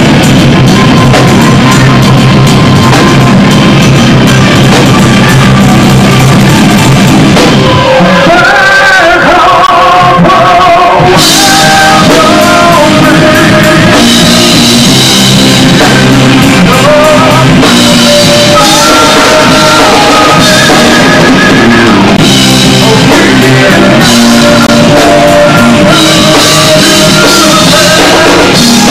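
Live rock band playing loud, with drums, guitars and a singing voice. About eight seconds in the drums and low end drop out, leaving mostly the voice, and the full band comes back about three seconds later.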